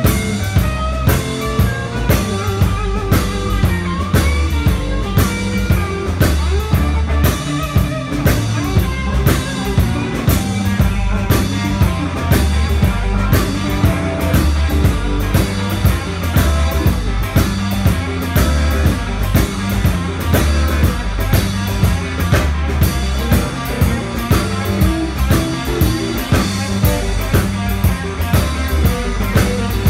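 Live blues-rock band playing: two electric guitars, electric bass and a drum kit keeping a steady beat.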